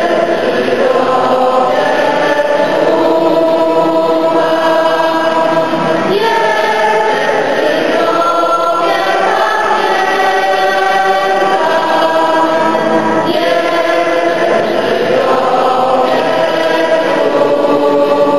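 A group of people singing a hymn together in long held phrases, with short breaks between phrases about six and thirteen seconds in.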